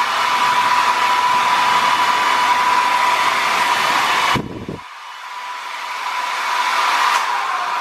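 Conair Vagabond 1875 W compact travel hair dryer running on its high setting: a steady rush of air with a steady whine. A little past halfway the sound cuts off suddenly with a short thump, then the blowing builds back up gradually.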